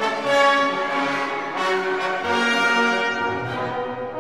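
Orchestral background music, led by brass such as French horn, playing sustained notes.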